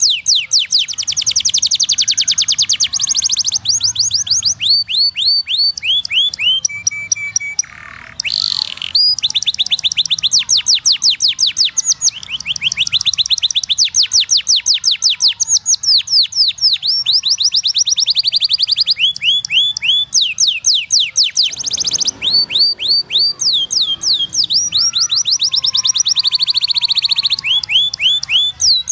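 Domestic canary singing: long, fast trills of rapidly repeated high chirps, each a quick downward sweep, switching to a new trill every second or two. There is a brief break in the song about eight seconds in.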